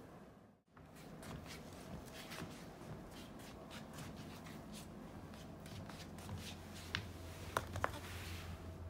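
Rustling and light scratching as a cat paws at and drags a tiger mask with an elastic band across a wooden floor, with a few sharp clicks near the end. The sound cuts out briefly just under a second in.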